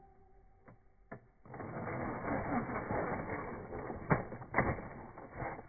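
Small RC rock crawler's electric motor and gearbox whirring as it climbs over rocks, starting about a second and a half in after a couple of clicks. Two sharp knocks come near the end.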